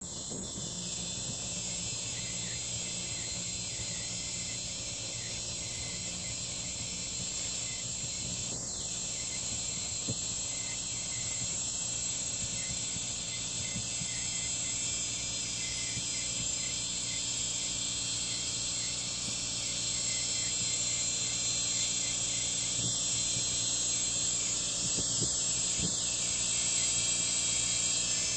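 John Deere tractor with a boom mower cutting roadside brush: a steady low engine hum under a continuous high hiss from the cutting head, slowly growing louder toward the end.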